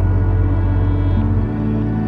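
Slow, dark ambient background music of long held notes over a deep drone, moving to a new chord about halfway through.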